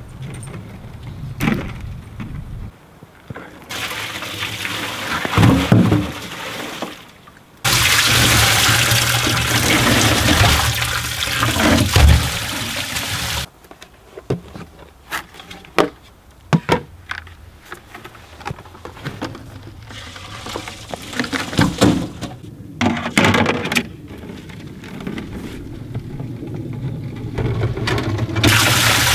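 Maple sap poured from a bucket into a stainless steel vat onto floating ice chunks: a steady splashing rush in two pours, the second longer and louder, followed by scattered knocks and clinks.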